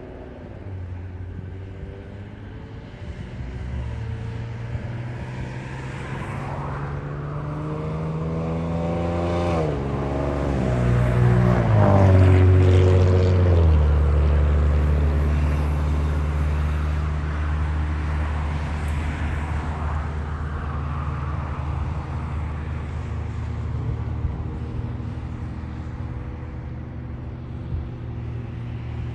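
Car engine accelerating, its pitch climbing in steps through gear changes to a peak about twelve seconds in, then settling into a steady low drone at cruise, over tyre and road noise.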